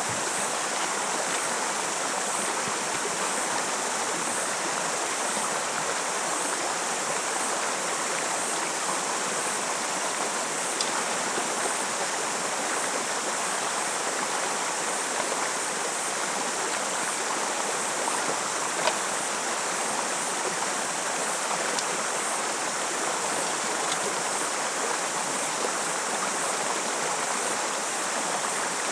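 Rocky creek rushing over boulders in small rapids, a steady, even rush of water, with a few light clicks, the sharpest about two-thirds of the way in.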